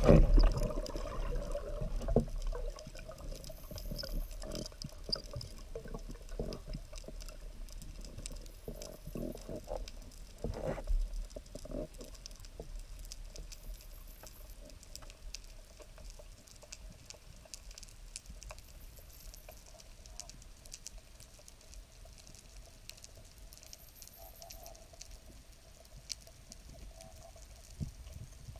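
Underwater ambience on a breath-hold dive: steady faint crackling and scattered clicks in the water. A louder rush of water in the first second or two fades quickly, with a couple of brief swishes of water movement later on.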